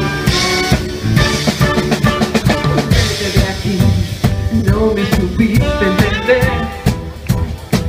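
Live band music driven by a drum kit, with snare and bass-drum hits over pitched instruments.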